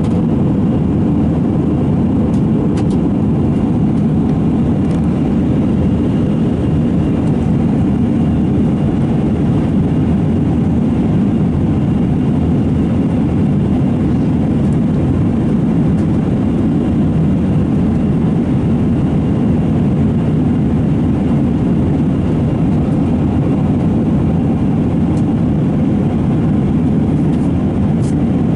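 Steady low cabin drone inside an Airbus A320-232 in flight: its IAE V2500 turbofan engines and the airflow along the fuselage, heard from a window seat.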